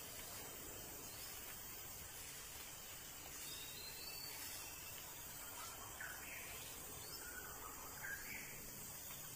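Faint steady outdoor background hiss, with a few faint short high sounds about six to eight seconds in.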